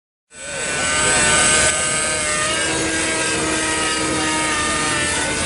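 Nitro-powered Compass 3D Plus RC helicopter hovering: its glow engine and rotor run steadily, a high whine over a stack of lower engine tones. The sound fades in at the very start and gets slightly quieter a little under two seconds in.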